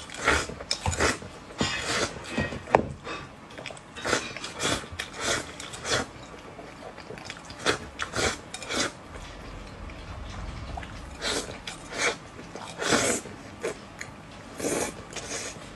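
Eating sounds: chopsticks clicking and scraping against a rice bowl held to the mouth as rice and stew are shoveled in, with slurping and chewing in short irregular strokes.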